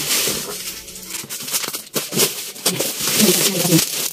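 Plastic bubble wrap around a cardboard parcel being cut and pulled open, with crinkling and rustling and many small sharp clicks.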